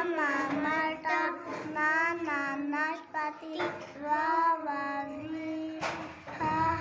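Schoolgirls reciting Urdu letter sounds in a sing-song chant, drawing out each syllable as they sound out a word built from the letters lam, mim, nun, waw, ha and hamza. A sharp click comes a little before the end.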